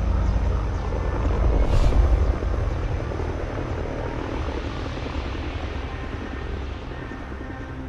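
Helicopter engine and rotor running, a deep rumble loudest in the first two seconds that then fades steadily away.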